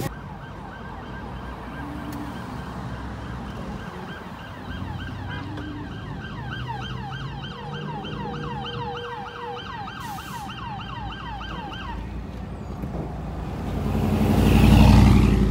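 Fire engine siren sounding a fast, repeating yelp that cuts off about twelve seconds in as the engine pulls up. Near the end a vehicle passes close by with a loud low rumble.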